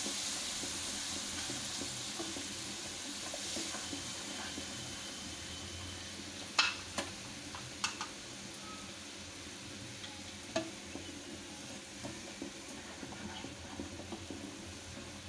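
Spice paste sizzling as it fries down in oil in a frying pan, the hiss easing a little over time. A spatula stirring it knocks against the pan a few times, sharpest between about six and a half and eight seconds in, with another knock near eleven seconds.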